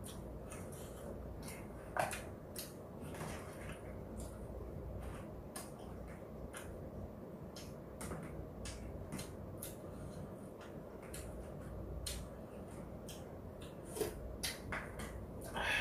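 Eating at a table: scattered clicks and taps of chopsticks and a spoon against plastic takeout containers and a bowl of stew, with mouth noises of eating, over a steady low room hum. A louder clatter comes about two seconds in, and another near the end as a spoonful goes to the mouth.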